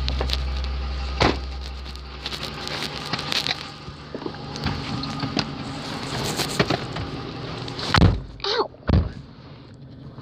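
Handling and rustling while someone climbs into a car, with knocks and two loud thunks about eight and nine seconds in, like a car door being handled. A low steady hum dies away in the first couple of seconds.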